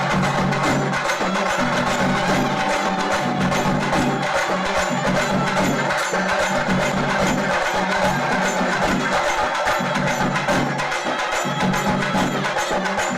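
Music with busy, rhythmic percussion of clacking strikes and bell-like ringing, running steadily.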